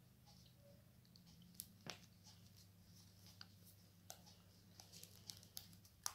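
Near silence: faint rustling and scattered light clicks of hands handling a stuffed cotton sock and rubber band, over a low steady hum.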